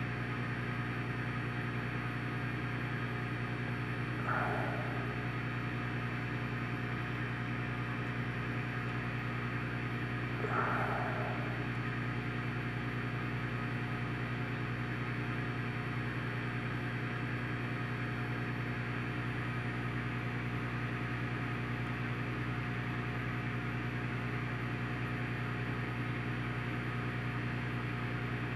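Steady low electric hum from running aquarium equipment, with two faint short sounds about four and ten seconds in.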